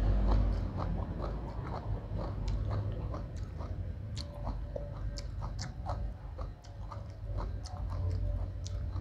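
Close-miked chewing and mouth smacking on a mouthful of spicy rice-noodle salad with chicken feet, with many small sharp clicks.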